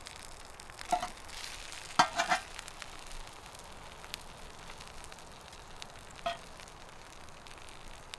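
Vegetables sizzling on a hot steel griddle plate over a wood fire, a steady hiss with small pops. A metal spatula clinks and scrapes against the pan a few times, about one and two seconds in and again a little past six seconds.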